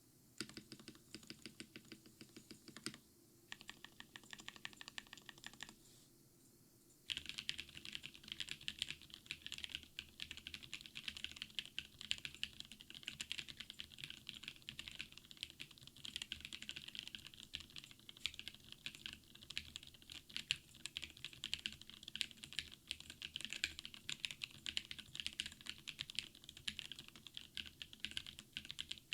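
Typing on a Drop CSTM80 mechanical keyboard with Gateron Mountain Top switches, a PC plate and case and plate foam: key presses clacking. The typing is slower and broken by short pauses over the first several seconds, then fast and continuous from about seven seconds in.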